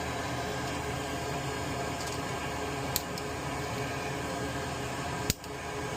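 Steady hum of a small motor running, with a light click about three seconds in and a sharper click a little after five seconds.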